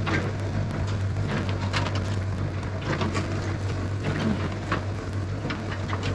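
Cat 307SSR mini excavator's diesel engine running at a steady speed, with irregular crackling and clicking on top throughout.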